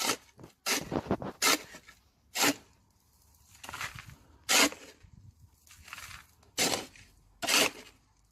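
Shovel scooping and tossing fine sand, about ten short gritty scraping rushes at irregular intervals, as sand is heaped around a buried water pipe.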